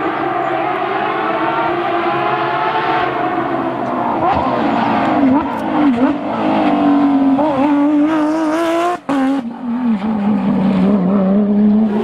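Porsche 911 GT3 rally car's flat-six engine revving hard through a bend. The pitch dips and climbs several times, cuts out briefly about nine seconds in, then runs on at a lower pitch.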